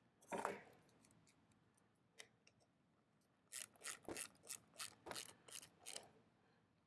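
Faint clicks of a hand wrench working a cable terminal nut on a battery cutoff switch: one click about half a second in, then a run of quick clicks, about four a second, near the end.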